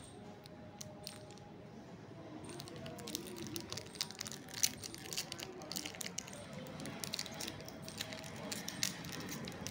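A metallized plastic chocolate-bar wrapper crinkling and crackling as fingers tear and peel it open. The crackling comes in quick, irregular bursts, starting about two and a half seconds in.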